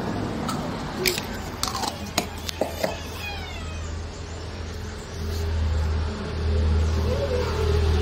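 A few sharp clicks and knocks from handling a teak strip and plywood panel while gluing the strip on, over a steady low rumble that grows louder about five seconds in.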